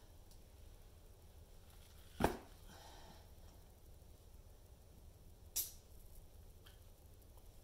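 Two short, sharp clicks about three seconds apart, the first louder, from hands handling a drinking straw and an orange; otherwise faint room tone.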